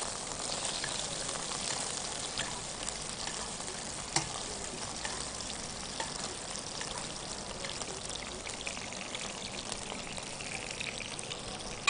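Pork tenderloin frying in hot oil in a stainless steel frying pan: a steady sizzle full of fine crackles, with one sharper click about four seconds in.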